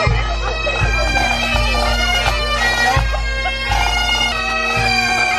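A pipe band of Highland bagpipes playing a tune over a steady drone, with a bass drum beating underneath.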